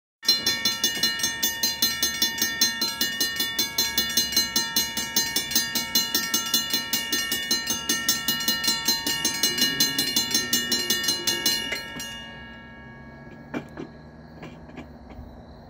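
Railroad grade-crossing warning bell ringing in rapid, evenly repeated strokes, warning of an approaching train, then stopping abruptly about twelve seconds in.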